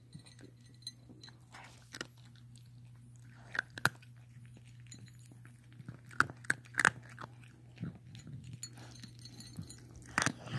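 A cat's strange-sounding breathing: irregular short clicks and snuffles, clustered about four and seven seconds in and again near the end.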